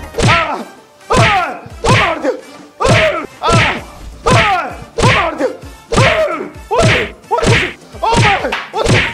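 Repeated whacks of a wooden stick beating someone: about a dozen blows a little under a second apart, each followed by a short falling tone.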